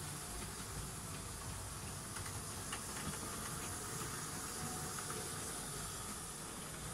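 Steady hiss, with a few faint light clicks about two to three seconds in.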